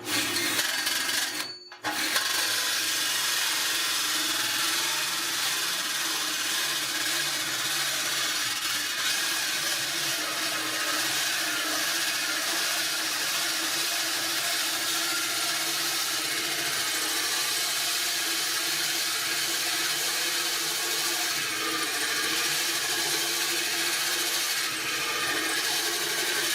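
Power drill driving a wood-cutting hole saw against sheet steel, a loud, steady, high-pitched grinding screech after a brief stop about a second and a half in. The cutter is made for wood and barely bites into the steel, and it heats the metal.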